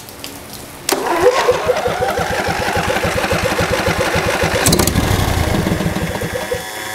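Briggs & Stratton Intek I/C 20 HP V-twin engine being cranked by its electric starter, a rhythmic chugging for about four seconds, then firing and catching near the end. It starts on choke after its rebuild.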